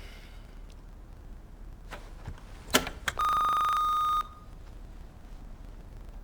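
A single steady electronic beep, about a second long, preceded by a couple of sharp clicks.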